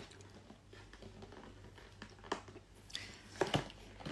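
Faint eating sounds from someone eating fried chicken and fries: a few short crunches and clicks, mostly in the second half, over a low steady hum.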